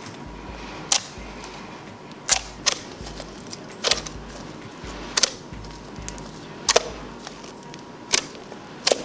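A series of about eight sharp clicks, one every second or so, over a faint steady background.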